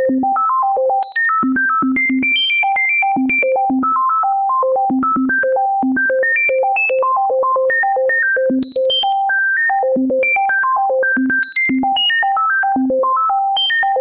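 Synthesizer playing a fast, unbroken run of single notes, about five a second, leaping irregularly between low and high pitches with no repeating tune: a number sequence, the prime numbers, turned into notes.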